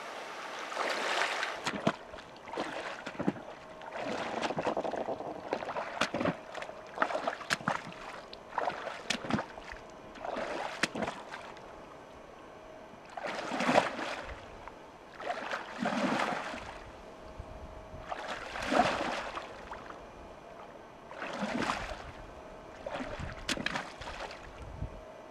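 Wading footsteps in lake water, each step dragged sideways to make a swirling slosh, imitating a cow moose moving through deeper water. A slosh comes every two to three seconds, with a few sharp ticks between them.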